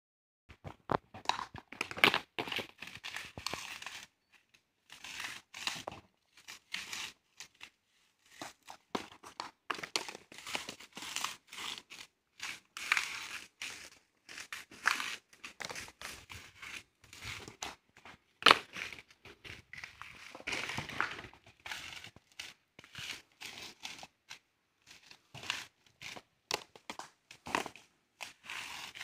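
Dry coconuts and husks on a copra heap crunching, crackling and clattering as they are trodden on and handled. The sound comes as irregular clusters of sharp cracks with short pauses, and a louder crack about 18 seconds in.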